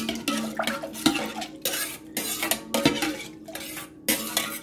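A metal spoon stirring liquid in a small stainless steel pot, clinking and scraping against the sides in an irregular run of knocks.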